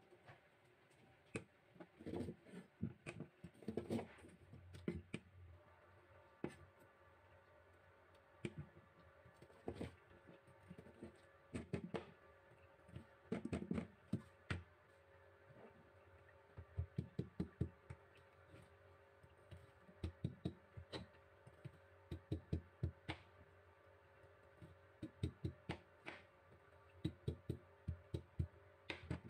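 Kitchen knife chopping a peeled corn cob into rounds on a plastic cutting board: repeated sharp knocks of the blade striking the board, some coming in quick runs of several strokes.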